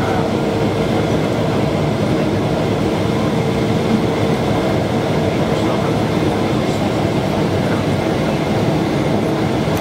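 Boeing 777-200ER cabin noise on final approach, heard beside the wing-mounted GE90 engine: a steady rumble of engine and rushing air with a faint steady hum underneath.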